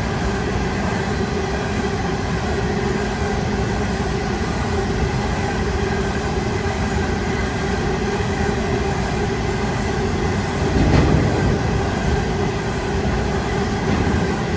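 Loaded coal hopper wagons of a freight train rolling past: a steady rumble of steel wheels on rail, with a faint steady squealing whine and a louder bump about eleven seconds in.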